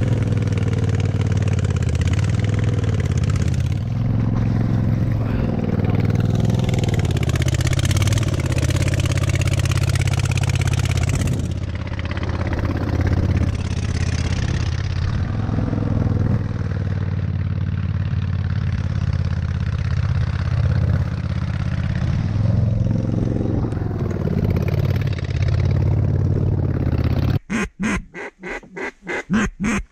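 Boat motor running steadily under way, its pitch shifting a little as the boat moves over the water. About 27 seconds in it cuts off abruptly and a rapid series of duck quacks follows.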